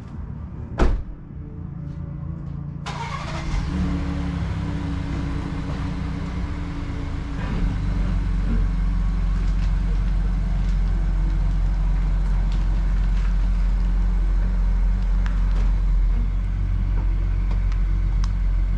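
A single sharp knock like a car door shutting, then the car's engine starts and the vehicle drives off, its low engine and road rumble building and then holding steady.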